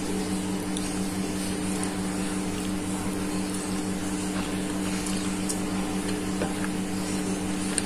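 A steady mechanical hum with a constant low drone, with a few faint soft clicks and mouth sounds as someone bites and chews food from a skewer.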